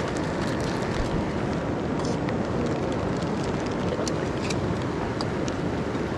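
Steady rushing of heavy rain together with a cascading river, with scattered raindrops ticking sharply on nearby surfaces.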